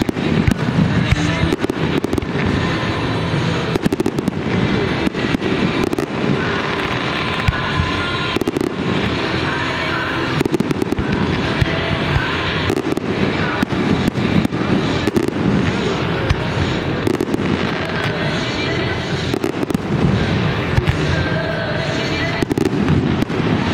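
Aerial fireworks going off in quick succession: many sharp bangs and crackling bursts, one after another.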